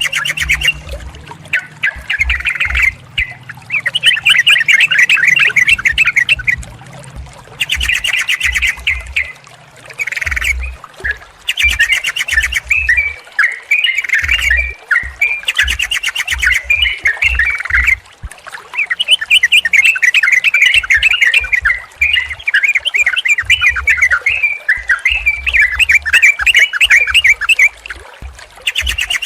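Yellow-vented bulbuls (trucukan) singing in rapid, chattering bursts of bubbling notes. Each phrase lasts a second or two, with short gaps, one following another.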